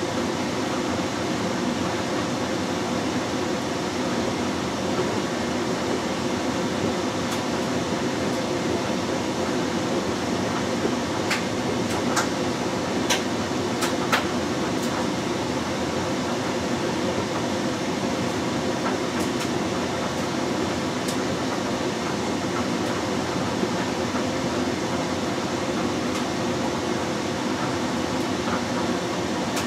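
LG Direct Drive 6 Motion front-loading washing machine in its main wash, the drum turning and laundry sloshing through soapy water in a steady churn. A few sharp clicks stand out near the middle.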